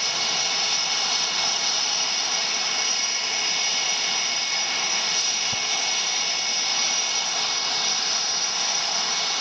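CF-18 Hornet fighter's twin General Electric F404 turbofans idling: a steady, high-pitched jet whine.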